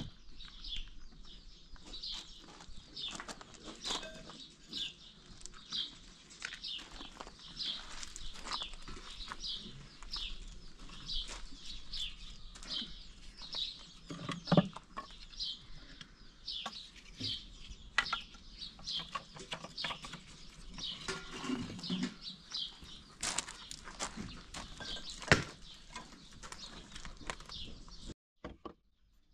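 A bird chirping over and over in short, high, regular notes, roughly two a second, with scattered light clicks and knocks. The sound cuts off abruptly near the end.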